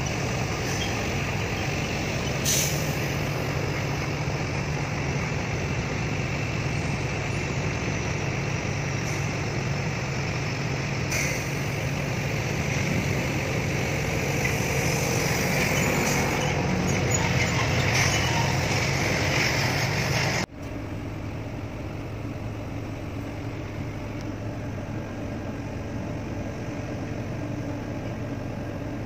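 Steady engine and running noise of a large motor vehicle heard from inside its cabin, a low hum under a noisy rush, with a few brief sharp noises. About two-thirds of the way through it drops suddenly to a quieter, steady engine hum.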